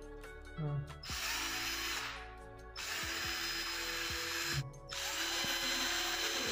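Cordless drill running in three bursts, the first short and the next two longer, each a steady whirring whine that stops between runs.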